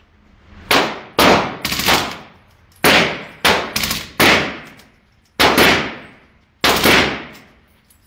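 Gunshots at an indoor shooting range: about nine sharp shots at irregular intervals, some in quick succession, each followed by a long echoing decay.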